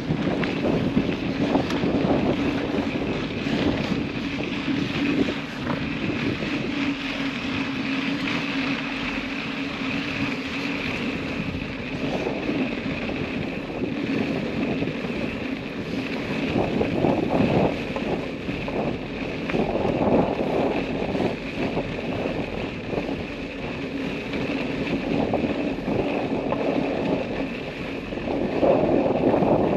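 Off-road vehicle's engine running steadily at low speed over rough trail, with wind and rumble on the microphone; the rumble swells louder a few times, most of all near the end.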